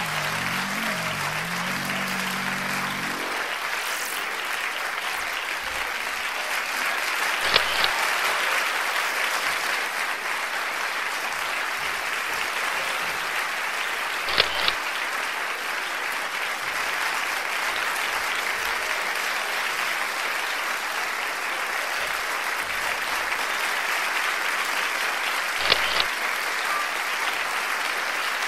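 Steady applause, with background music ending about three seconds in. Three short sharp double clicks sound over it, about 7, 14 and 26 seconds in.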